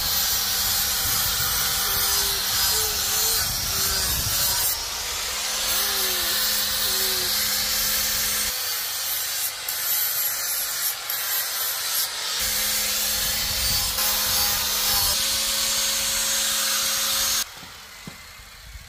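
Angle grinder with an abrasive disc grinding steel: a loud, steady grinding hiss over the motor's hum, changing in character a few times and cutting off abruptly near the end.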